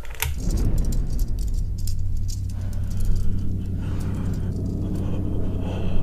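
A pull-chain switch clicks, then a loud, steady low hum sets in, with irregular rattling and crackling over it.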